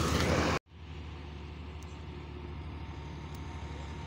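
Smooth-drum road roller's engine running close by, cut off abruptly about half a second in. A quieter steady engine hum of distant vehicles follows.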